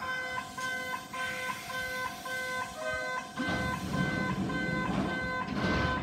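A railway level-crossing warning bell of an unusual-sounding type, ringing in a fast even repeat of about three strokes a second. About three and a half seconds in, a low rushing noise swells beneath it.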